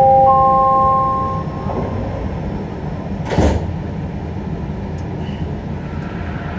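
SkyTrain Mark II door chime: three rising tones that enter one after another, hold together and stop about a second and a half in, then a short burst of noise about three and a half seconds in as the sliding doors close. A steady low hum from the standing train runs underneath.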